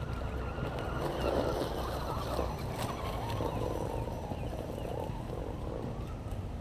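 Electric RC scale crawler (Axial SCX10) with its motor and spur-gear drivetrain whining, the pitch wavering up and down with the throttle as it crawls over sticks and dirt. A few sharp crackles of twigs under the tyres come near the middle.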